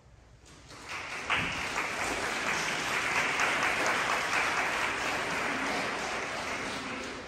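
Audience applauding: the clapping starts within the first second, quickly builds to a steady level, and dies down near the end.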